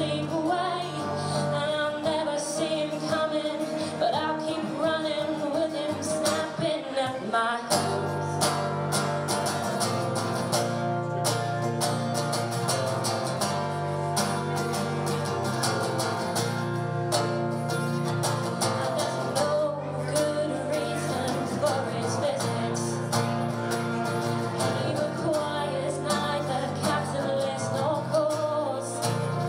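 Live acoustic folk song: a strummed acoustic guitar with a woman singing the melody. The accompaniment gets fuller and heavier about seven seconds in.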